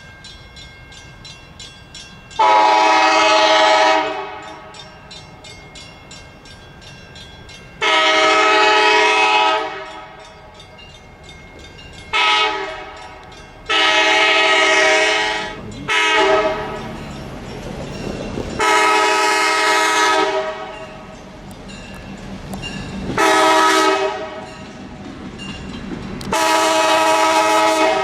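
Diesel locomotive's multi-chime air horn sounding the grade-crossing signal of two long blasts, a short one and a long one, then starting the pattern again as the train draws near. Between blasts the train's rumble grows.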